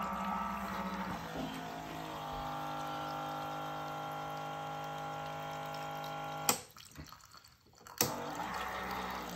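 Black & Decker BEV cocktail maker running its pump with a steady hum while a thin stream of cocktail pours into an iced glass. About six and a half seconds in, a click stops it briefly. Another click comes about a second and a half later and it starts up again.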